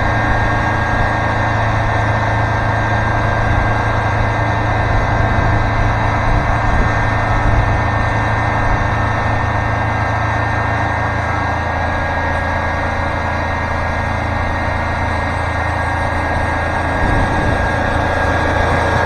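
Wood-Mizer LT40 Super Hydraulic portable sawmill running steadily, its engine humming under the noise of the band saw. The engine note dips slightly about halfway through.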